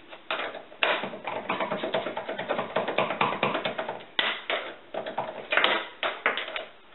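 Metal hand tools clattering and clinking together in a quick, irregular run of taps and rattles, with brief pauses about one and four seconds in.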